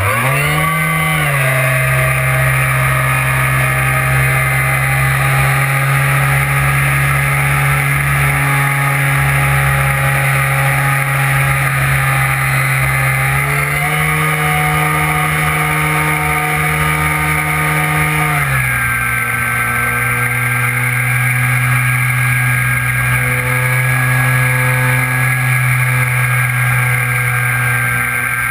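Brushless electric motor and propeller of an RC plane running under power, a loud steady whine. The pitch climbs as the motor spins up at the start, steps up about halfway through and drops to a lower steady pitch some five seconds later as the throttle changes.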